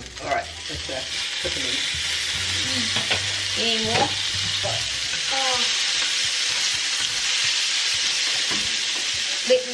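Live huhu grubs dropped into hot melted butter in a cast-iron frying pan, sizzling steadily; the sizzle comes up about a second in and holds at an even level.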